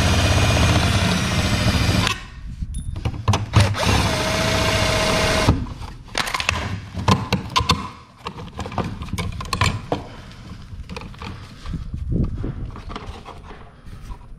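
Milwaukee cordless drill/driver running twice in short bursts, backing screws out of a wall plate: about two seconds at first, then again for about two seconds starting three and a half seconds in, with a steady motor whine. After that, quieter clicks and knocks as the plate comes off and wire is pulled from the wall box.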